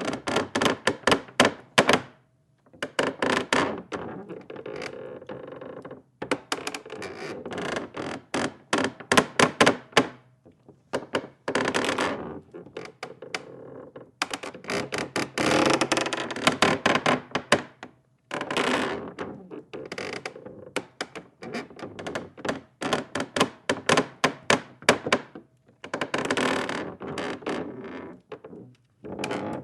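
Wood creaking in a string of separate creaks, about ten of them, each lasting one to four seconds and made of rapid crackling ticks, with short pauses in between.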